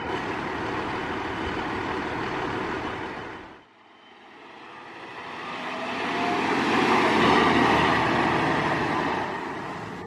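Pierce fire engine's diesel running steadily at idle. After a break about four seconds in, the fire engine drives past, its engine growing louder to a peak and then fading.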